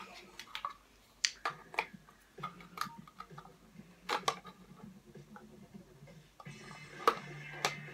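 Irregular sharp clicks and taps of a hard plastic pencil sharpener and giant chalk pencil being fiddled with by hand, over a faint low hum.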